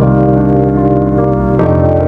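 Background music: sustained organ-like keyboard chords, with a chord change about a second and a half in.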